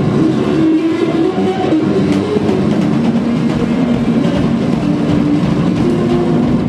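Live band playing loud and heavily distorted: a bass guitar sustaining low notes that shift in pitch over a dense, unbroken noise of drums and amplified distortion.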